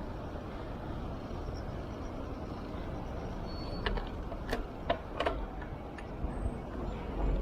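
Steady wind and road noise from a bike-mounted camera while riding a road bike, with a short run of sharp clicks or knocks about four to five seconds in.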